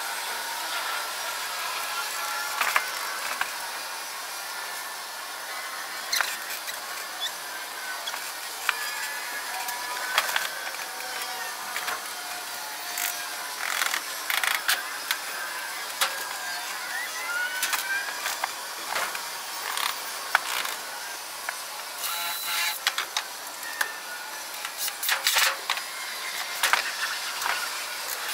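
Scattered clicks and knocks of wood and hand tools being handled during building work, over a steady hiss.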